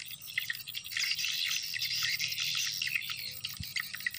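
Dense outdoor chorus of chirping birds and insects, many short overlapping chirps. A single low thump sounds a little before the end.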